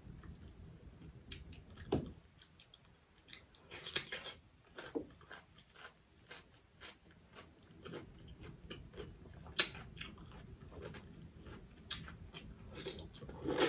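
Close-miked chewing with wet mouth smacks from eating boiled crawfish in garlic butter sauce. Scattered small clicks and crackles of crawfish shells being handled run throughout, with a few sharper, louder clicks.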